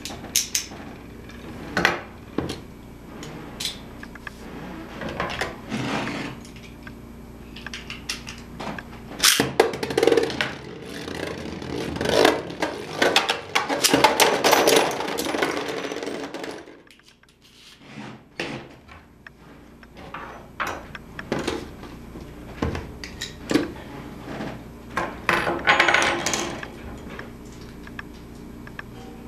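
Beyblade spinning tops in a plastic stadium, clicking and scraping as they spin. From about nine seconds in there is a busy stretch of clattering and grinding while two tops battle, ending suddenly around seventeen seconds in, followed by more scattered clicks.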